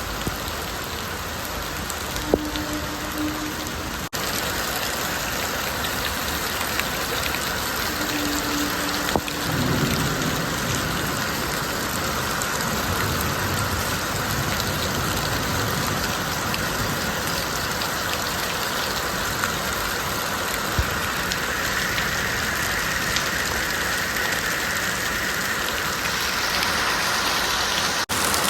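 Heavy rain falling steadily, a dense continuous hiss of drops striking surfaces.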